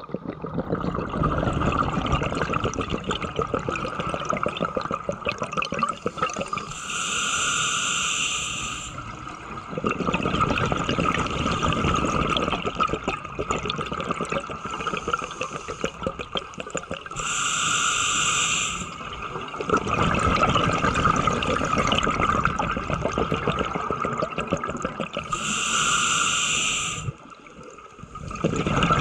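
Scuba regulator breathing underwater: long crackling streams of exhaled bubbles, broken three times, about nine seconds apart, by a short hissing inhalation through the regulator.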